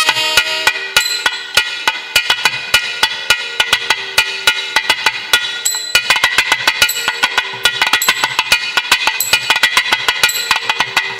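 South Indian temple music: a reed horn, in the manner of a nadaswaram, holds a steady note under a fast, irregular run of sharp drum strokes, like a thavil solo passage.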